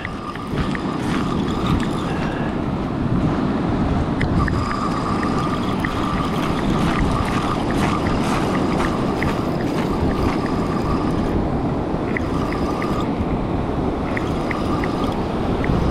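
A Penn Clash spinning reel being wound in against a hooked fish, its gears giving a thin whine that comes and goes and a scattering of light clicks, over a steady wash of surf and wind on the microphone.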